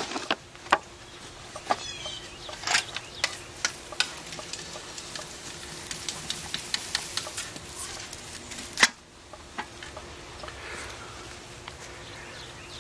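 Irregular crackling clicks and rustles of a black plastic nursery pot being handled, with one sharper knock about nine seconds in, after which it goes quieter.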